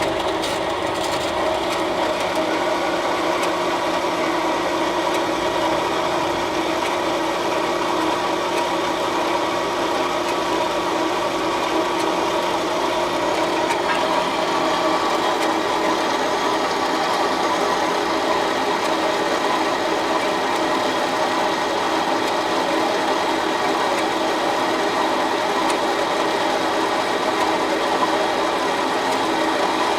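Metal-cutting band saw switched on and running steadily, its blade cutting a thin slice off steel stock: an even motor hum under the steady noise of the cut.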